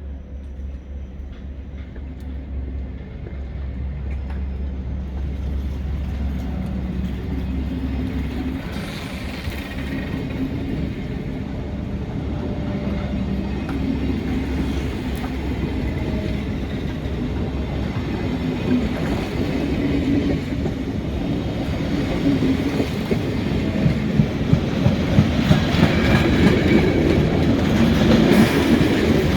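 Train rolling through the station, growing steadily louder, with the wheels clacking over rail joints in the last few seconds. A steady low hum stops about eight seconds in.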